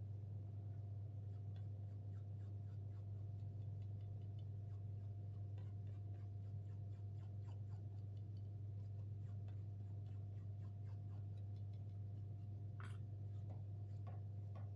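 Turkey or goose feathers on a wooden arrow crackling and scratching against the hot wire of an electric feather burner as they are burnt to shape: many small ticks, with a slightly stronger scratch near the end, over a low steady hum.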